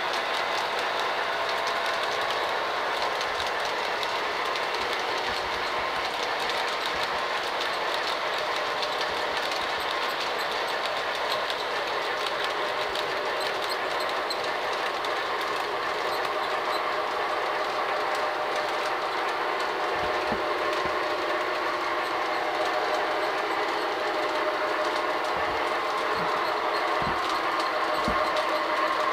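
Several O-gauge model trains running on a layout: a steady whir of electric motors and the rumble of metal wheels on the track.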